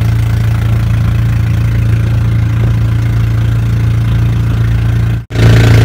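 A fishing boat's engine running steadily, a low, even hum. It cuts out for an instant a little after five seconds in and comes back slightly louder.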